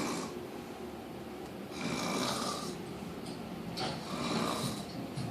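A woman snoring heavily in deep sleep, one long rasping snore about every two seconds.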